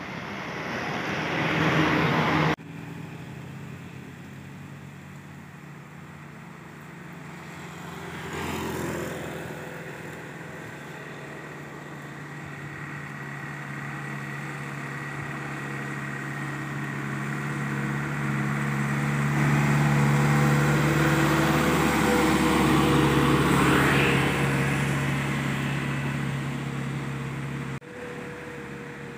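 Engine of a light truck loaded with sugarcane, running steadily and growing louder as it approaches and passes, loudest about two-thirds of the way in. A shorter vehicle pass comes about a third of the way in, and the sound breaks off suddenly twice where the shots change.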